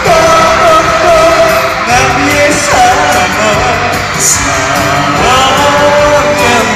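A pop song performed live and played loud in a concert hall: a singer's amplified voice carries the melody over the backing music.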